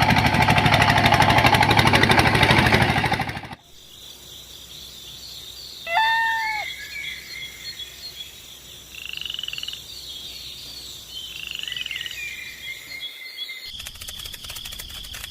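A loud, fast, even rattle like a small machine running, lasting about three and a half seconds and then stopping. After that come quieter outdoor sounds with chirping calls, the loudest about six seconds in. A similar fast rattle starts again shortly before the end.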